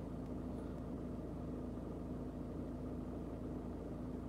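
Steady low hum with one constant tone inside a parked van's cab, with no other events.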